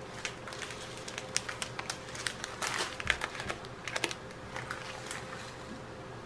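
Small plastic zip-lock bags of square diamond-painting drills handled in the fingers: irregular light clicking and crinkling as the plastic is squeezed and the drills shift inside.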